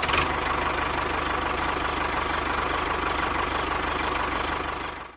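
Engine-like running sound, a rapid low chugging under a steady hum, that cuts off abruptly near the end.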